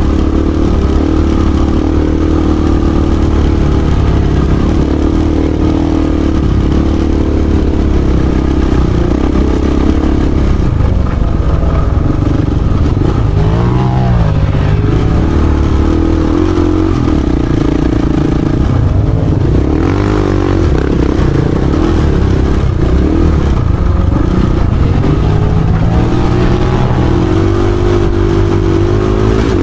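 Dirt bike engine heard from on the bike, running loud and steady under load. The pitch rises and falls as the throttle opens and closes, with clear revs about halfway through and again near the end.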